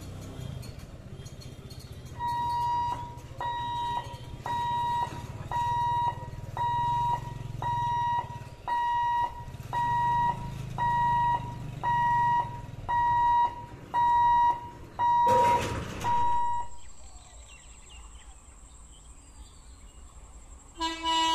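Level-crossing warning alarm beeping with a steady electronic tone about once a second, over a low rumble of waiting road traffic; a short burst of noise comes near the end of the beeping. The beeping stops about 17 seconds in, leaving a quieter stretch with a faint, high, steady whine.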